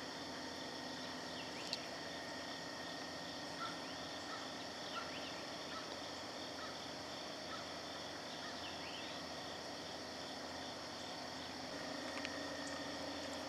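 A steady chorus of insects with short bird chirps now and then, and a brief run of repeated notes a few seconds in.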